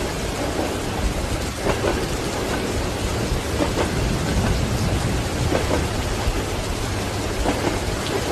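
Steady rain with a low rumble beneath it, and the clack of train wheels over rail joints coming in pairs about every two seconds.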